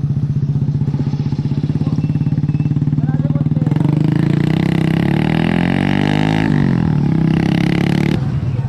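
Motorcycle engine running with a steady pulsing drone; about four seconds in a louder second engine joins, its pitch rising and then falling, and drops away shortly before the end.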